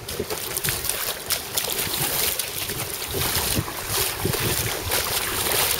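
Footsteps wading through floodwater, the water splashing and swishing irregularly with each stride, with wind buffeting the microphone.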